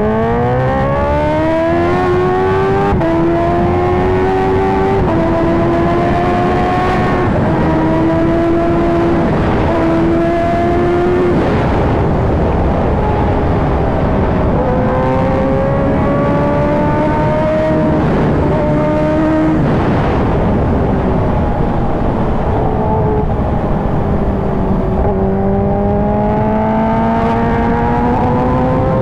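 Kawasaki Ninja H2R's supercharged inline-four engine under hard acceleration, the revs climbing steeply and then dropping in steps with each upshift over the first dozen seconds. The engine then runs at speed, its revs rising and falling a little, and climbs gradually again near the end.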